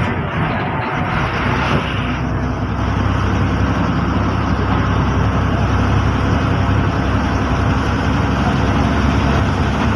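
KSRTC bus's diesel engine running steadily under way, with a low hum and road noise as the bus drives.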